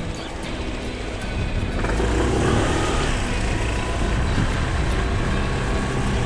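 Honda Lead 125 scooter's single-cylinder engine running while riding, with road and wind noise; it grows louder about two seconds in, as if accelerating.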